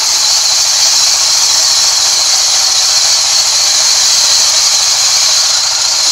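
Sawmill band saw blade ripping lengthwise through a rain tree plank: a loud, steady, high-pitched hiss and whine of the blade in the wood.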